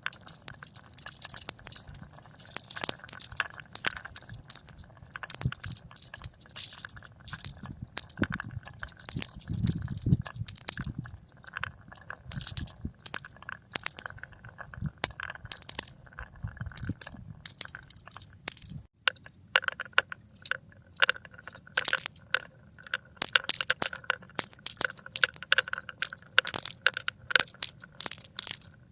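Marbles rolling and clattering down marble run tracks: a rapid, irregular stream of clicks and clacks over a low rolling rumble. About two-thirds of the way through the sound changes abruptly and the rumble drops away, leaving the clicking.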